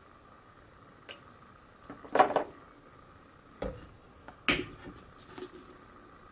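A few separate clinks and knocks of kitchen utensils and dishes being handled and set down, the loudest a short cluster about two seconds in.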